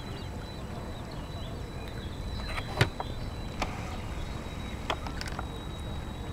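Outdoor wind rumble on the microphone, with a faint steady high tone and a few sharp clicks, the loudest about three seconds in.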